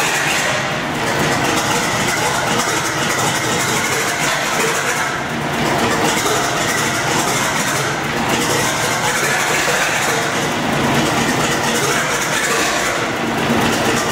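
Gardner 6L3 six-cylinder diesel engine running steadily on a test stand.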